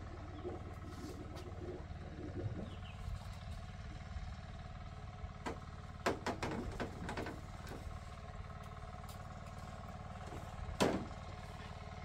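Scattered knocks and clatter over a steady low hum, with a cluster of sharp knocks a little past halfway and one loud knock near the end.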